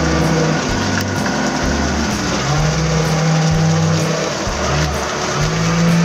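Hydraulic excavator's diesel engine running, heard from inside its cab, with a humming tone that drops away and returns a few times as the hydraulics are worked.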